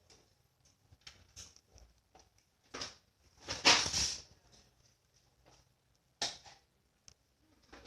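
Slime being handled: scattered small sticky clicks and pops, with a louder squishing burst lasting about half a second about three and a half seconds in.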